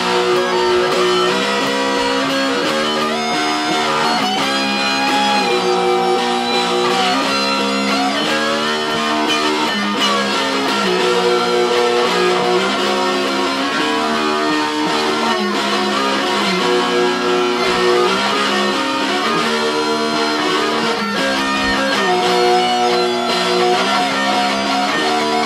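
Two electric guitars playing together, holding chords that change every second or two, with a lead line that slides and bends in pitch above them.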